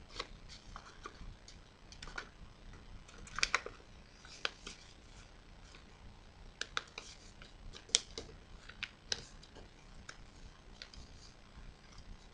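Origami paper crackling and rustling as it is folded and creased by hand, in irregular sharp crinkles, the loudest about three and a half and eight seconds in.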